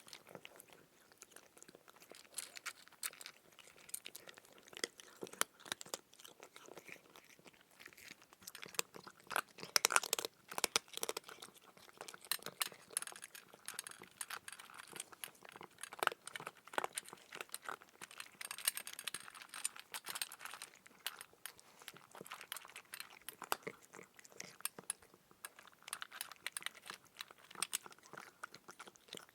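Close-up crunching and chewing of crisp food, a steady run of irregular sharp crackles and clicks, with a louder burst of crunching about ten seconds in.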